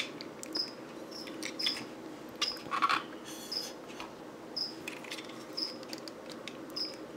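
Plastic clicks, taps and small rattles of a Hasbro Combiner Wars Sunstreaker Transformers figure's parts being pressed and clipped together by hand, with a few sharper snaps as pieces seat. A faint high chirp repeats irregularly behind it.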